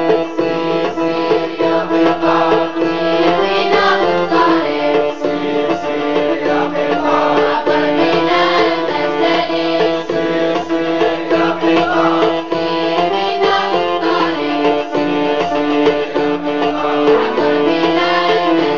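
Arabic children's song: a voice singing over a plucked-string and hand-drum accompaniment with a steady beat.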